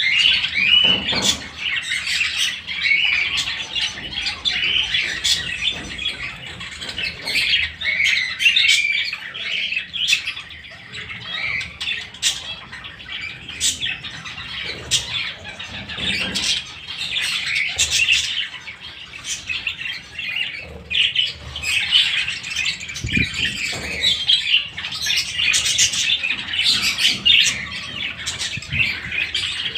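A flock of budgerigars chattering: a dense, unbroken stream of short chirps, warbles and squawks.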